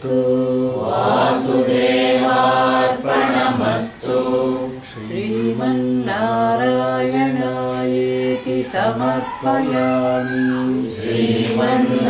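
Several voices chanting Sanskrit verses together in a steady, sustained recitation: the closing mangala prayer that ends a scripture discourse. There are short breaks for breath about four and five seconds in.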